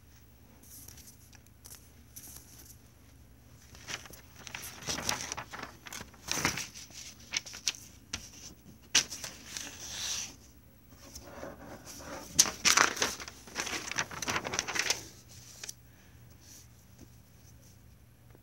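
Rustling and scraping of a lined paper sheet being handled and marked with a crayon, in two spells of short scratchy bursts about four seconds in and again from about nine to fifteen seconds.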